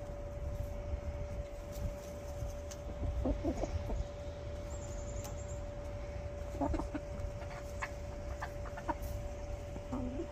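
Hens dust bathing give soft, low clucks a few times, over a steady hum and a low rumble in the background.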